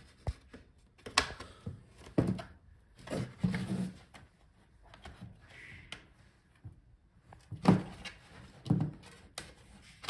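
Bottom-case clips of a Dell XPS 15 9520 laptop snapping free as a spudger is worked around the edge of the case: a scattering of sharp clicks and knocks, with a lull in the middle and the loudest near the end.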